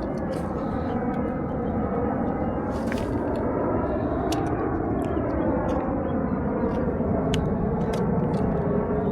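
A steady, low rumbling drone whose tone slowly sweeps up and down, with a few sharp clicks over it.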